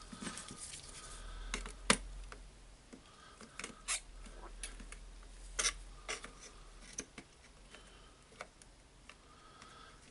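Handling sounds of a cordless angle grinder being reassembled: scattered light clicks and rubbing of plastic housing parts and wires as the new carbon brush holder and its leads are fitted into the motor housing. The two loudest clicks come about two seconds in and just past the middle.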